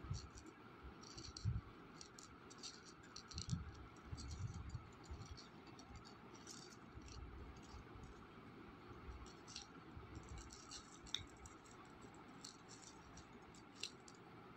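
A cat eating dry kibble from a paper plate: faint, irregular crisp crunches and clicks as the pellets are picked up and chewed, with a few low bumps.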